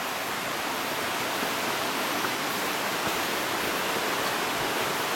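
A steady, even rushing noise with no separate sounds standing out.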